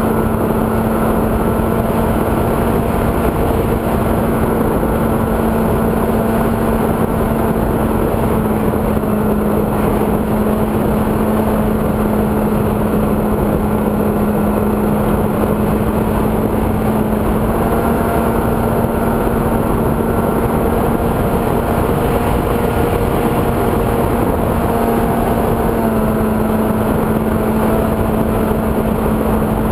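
Multiplex EasyStar model plane's electric motor and pusher propeller running with a steady hum, over a constant rush of airflow, heard from a camera mounted on the plane in flight. The pitch dips slightly about eight seconds in and rises a little around eighteen and again around twenty-six seconds in.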